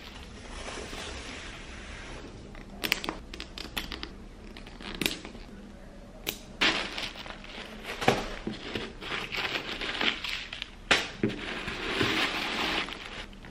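Paper stuffing crinkling and rustling as it is handled and pulled out of a handbag, with several sharp clicks scattered through. The rustling is heaviest in the second half.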